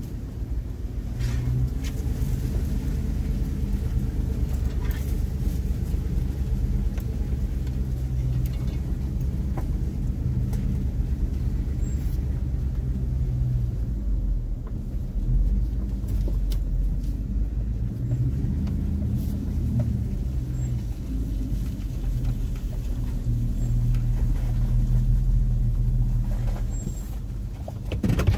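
Chevrolet Silverado pickup driving slowly down a dirt trail: a steady low engine and road rumble that swells and eases, with a few faint knocks from the truck working over the rough ground.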